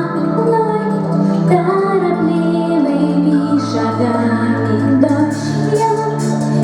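Music: a song with a female singing voice over instrumental backing with sustained bass notes.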